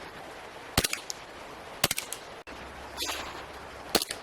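Airsoft rifle firing three single shots, sharp short cracks about a second in, near two seconds, and near the end, the second followed by a couple of quieter clicks.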